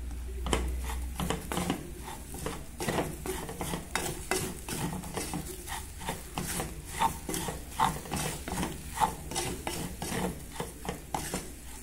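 Farofa (manioc flour toasted with onion and meat) being stirred and scraped around an aluminium pot, in quick repeated strokes of about two or three a second.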